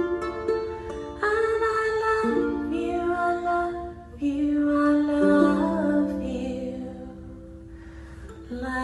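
A woman singing slowly in long held notes to her own strummed ukulele. The music falls quieter for a couple of seconds near the end before picking up again.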